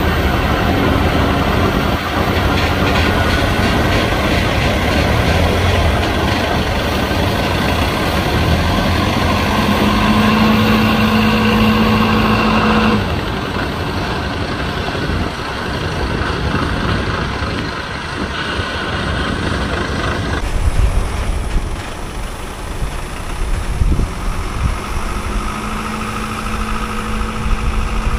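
Heavy tractor-unit truck hauling a wind turbine blade, its diesel engine running steadily under load. A steady held tone sounds for about three seconds near the middle and again near the end.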